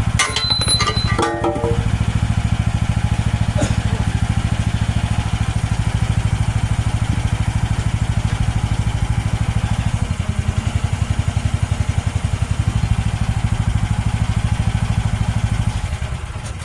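AGT H13R mini excavator's engine running at a steady idle, with a few sharp metallic knocks in the first second or so; the engine is shut off near the end.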